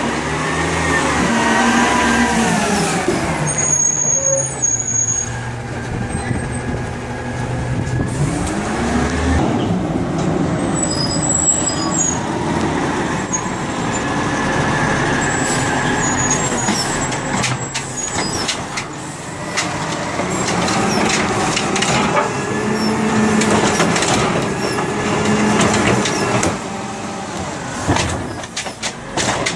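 Peterbilt automated side-loader garbage truck working its hydraulic arm: the engine revs up and down several times as the arm lifts, dumps and sets down carts. Air-brake hisses and metal clanks of the arm and carts come in between.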